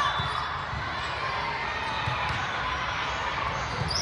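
Echoing din of a large hall full of indoor volleyball matches: many voices and players' calls mixed with the thuds of balls being played.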